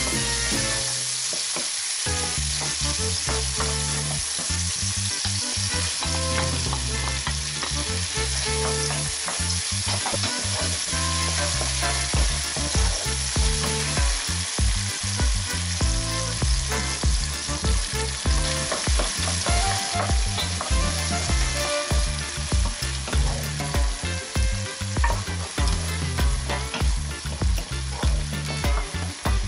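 Diced onion, red bell pepper and peas sizzling in oil in a stone-coated frying pan while a wooden spoon stirs and scrapes them. From about twelve seconds in, the stirring strokes come regularly, roughly one a second.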